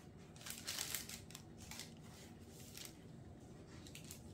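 Faint crinkling of baking paper as soft crescent-shaped dough rolls are set down on a paper-lined baking tray: several short rustles, most in the first two seconds.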